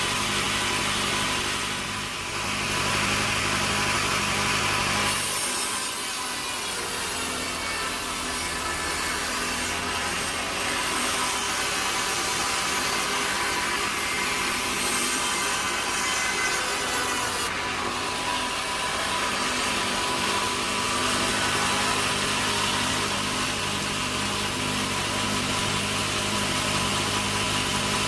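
Sawmill saw cutting through a log: a steady hiss of the blade in the wood over a continuous low mechanical hum.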